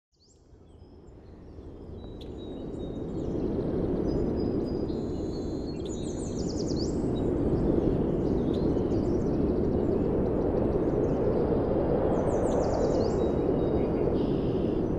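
Wind-like rushing ambience fading in over the first few seconds and then holding steady, with birds chirping at intervals, including quick falling trills about six seconds in and again near the end.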